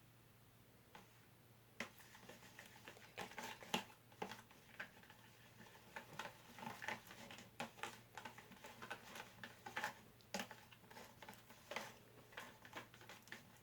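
Faint stirring of a thick body-wash and shampoo slime mixture in a container, with many irregular small clicks and taps starting about two seconds in.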